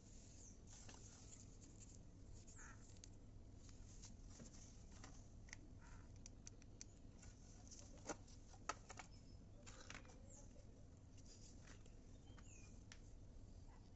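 Near silence: faint room tone with scattered small clicks and ticks, two of them sharper about eight seconds in, and a few short faint chirps.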